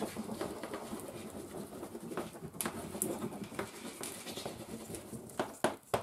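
Wax crayons scratching and rubbing on sheets of paper laid on a table, with several hands coloring vigorously at once. A few short sharp taps stand out, the loudest a little before the end.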